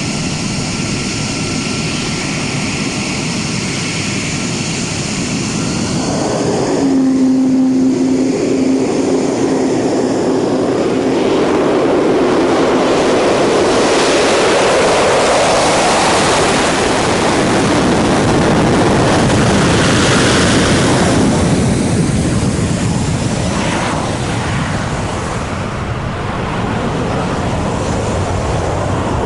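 F-35 fighter's single Pratt & Whitney F135 afterburning turbofan on an afterburner takeoff. A high whine carries over the engine noise at first. About seven seconds in it swells into a loud, full roar as the jet rolls past, then eases off somewhat near the end as it climbs away.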